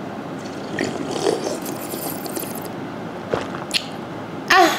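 Sips and swallows of soya bean drink from a can, a sharp click about three seconds in, then a short voiced exclamation just before the end.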